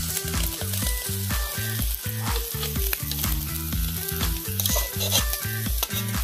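Background music with a steady bass beat, over the continuous hissing sizzle of Pacific saury grilling on a charcoal shichirin.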